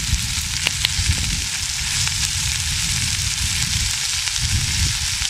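Onion rings sizzling steadily in oil in a skillet over a charcoal grill, sautéing down toward caramelized, with a low rumble underneath and a few small clicks about a second in.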